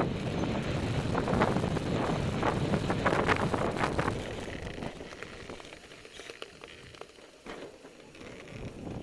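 Wind buffeting the microphone of a camera on a moving Blokart, with the kart's wheels rolling and hissing over wet sand, crackling and splashing. It is loud for the first four seconds, then much quieter for the rest.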